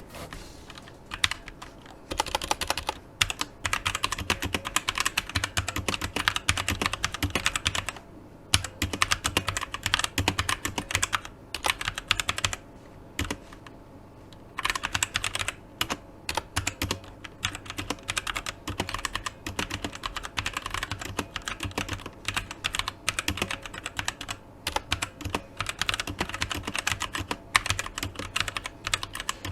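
Typing on a Tecware Phantom 87 tenkeyless mechanical keyboard with Outemu Brown tactile switches: a fast, steady clatter of keystrokes, broken by short pauses, the longest a couple of seconds about twelve seconds in.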